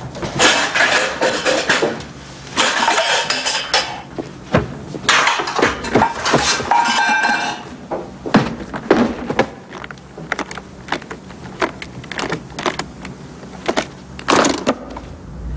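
Things knocking and clattering in a kitchen cupboard as it is rummaged through. In the second half comes a run of separate sharp clicks, as a briefcase's lock and latches are worked open.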